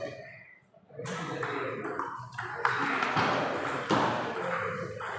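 Table tennis rally: the celluloid ball clicking sharply off rubber-faced paddles and bouncing on the table, a quick series of hits starting about a second in.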